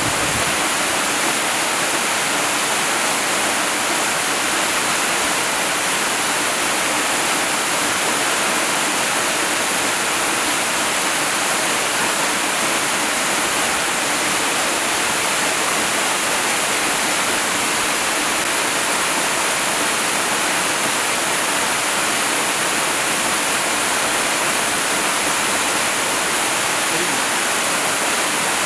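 Waterfall pouring in a steady, unbroken rush of water, heavy on hiss.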